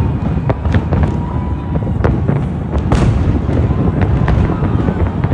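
Fireworks display: a rapid run of bangs and cracks over a continuous low rumble of distant bursts, with the sharpest crack about three seconds in.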